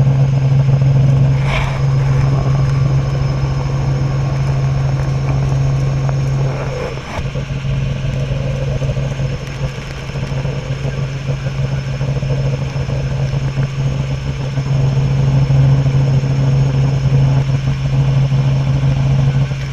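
Robinson R44 helicopter in flight, heard from the cabin: its Lycoming six-cylinder piston engine and rotors make a steady low drone with a constant hum and rushing noise, easing briefly about seven seconds in.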